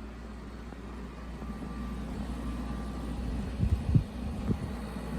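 Black+Decker portable air-conditioner heat pump running in heat mode, its compressor and fan giving a steady low hum. A few soft low knocks come near the end.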